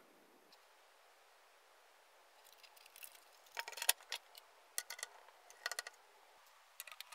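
Faint clicks and light clinks from handling an ELSA RX 5700 graphics card: it is turned over and set down on a wooden desk, and a screwdriver is fitted to its backplate screws. The clicks come in a few small clusters from about three and a half seconds in, after a quiet start.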